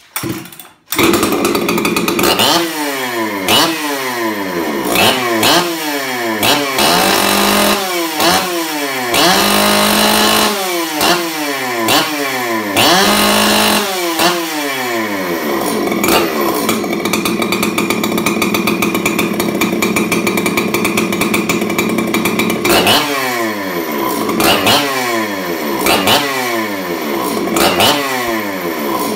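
Husqvarna 266 XP two-stroke chainsaw, running without a bar and with a custom exhaust pipe in place of its muffler, starts up about a second in and is then revved over and over, each rev falling back, with some revs held high for a second or so. It runs steady for several seconds midway, then goes back to quick rev-and-drop blips. With the pipe the owner hears it running richer on the top end.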